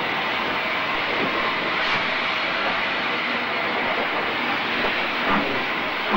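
Steam locomotive hauling a loaded iron ore train steadily past: a continuous rush of train noise with a couple of brief knocks from the moving train.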